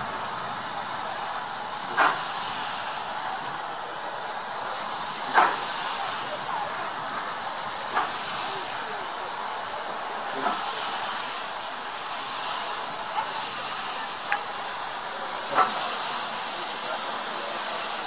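Small steam tank engine hissing steam steadily as it creeps slowly into the platform, with a sharp knock every two to three seconds.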